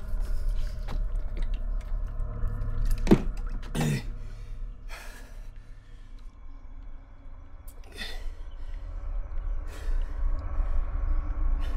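A man drinking from a plastic military canteen, then a handful of short, sharp breaths spaced a second or more apart, over a steady low rumble.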